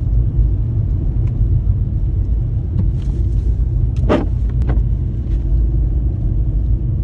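Car driving through deep snow in a blizzard: a steady low rumble of engine and road noise. A brief higher-pitched sound cuts in about four seconds in.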